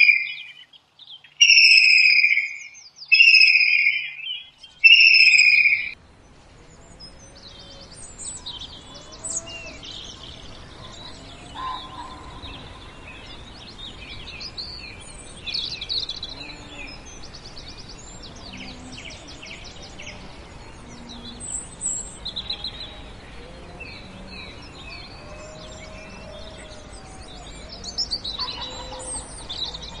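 Loud bird calls repeated about every second and a half, each about a second long and falling slightly in pitch. From about six seconds in they give way to a quieter, dense chorus of many small birds chirping and trilling over a faint outdoor background.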